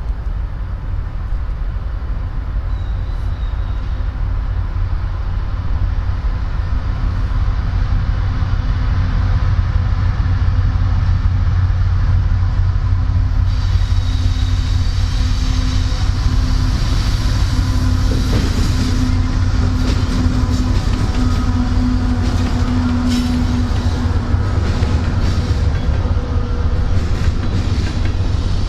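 CSX freight train rolling past: a steady low rumble with a constant hum, and from about halfway in, wheels clicking over rail joints and hissing on the rails.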